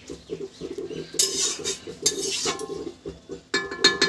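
Metal cookware clattering as a pan of cooked curry is lifted off the stove, with a ringing metal clang near the end.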